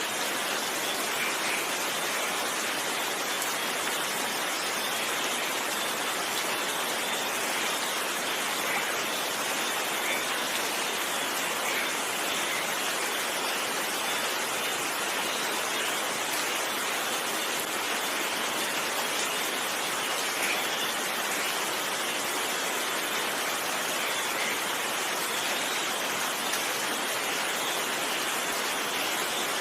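Steady rainfall, an even hiss with no thunder.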